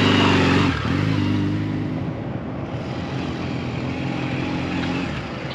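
Honda Rebel motorcycle's small parallel-twin engine running under way, high revs dropping briefly under a second in, then holding a steady note that grows fainter near the end.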